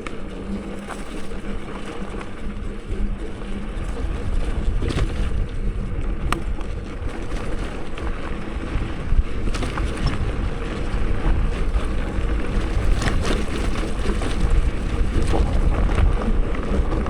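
Wind rushing over the microphone and the steady rumble of a touring bicycle rolling over a rough dirt trail, with scattered small clicks.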